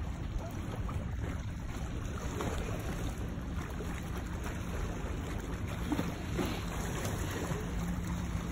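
Small waves lapping on the stones of a lakeshore, with wind buffeting the microphone as a steady low rumble.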